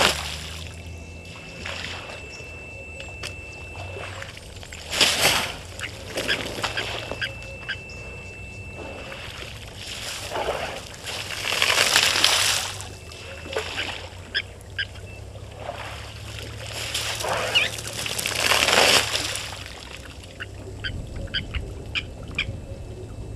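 African elephant splashing and sloshing water at a waterhole in repeated surges a few seconds apart. Short bird calls come in between.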